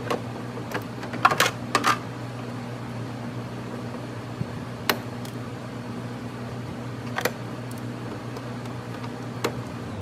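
Scattered sharp clicks and taps of a plastic fender duct piece being handled and fitted into a car's front fender. They come in a quick cluster about a second and a half in, then singly every couple of seconds, over a steady low hum.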